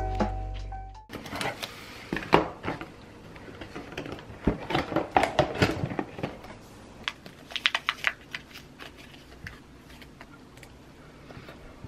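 Background music cutting off about a second in, then small paperboard ice-cream boxes being handled and torn open by hand: a run of crinkles, rustles and sharp clicks, thinning out near the end.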